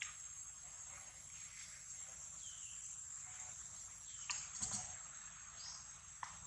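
A steady high insect drone, with a couple of short chirps and a few soft clicks and knocks around the middle.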